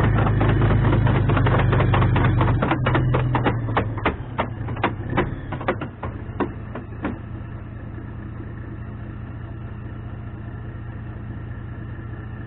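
Challenger Armoured Repair and Recovery Vehicle's steel tracks clattering link by link on concrete as it creeps along. The clatter slows and stops about seven seconds in. Its Perkins CV12 V12 diesel runs loud, then settles to a steady idle.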